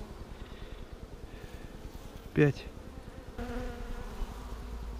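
Honeybees from a disturbed swarm buzzing around an open hive as frames are moved, with a steady close buzz in the second half as bees fly near the microphone. A brief loud sound about halfway through stands out above the buzzing.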